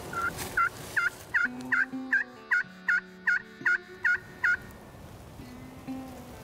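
Hen turkey yelps worked on a friction pot call with a wooden striker: a run of about a dozen short, evenly spaced yelps, roughly two or three a second, that stops about four and a half seconds in.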